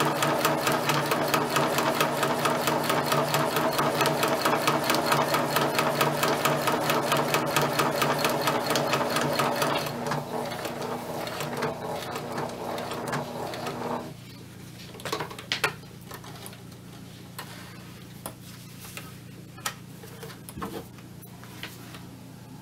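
Electric sewing machine stitching fast in an even run of needle strokes, easing off about ten seconds in and stopping a few seconds later. After it stops come a few light clicks and rustles of fabric being handled.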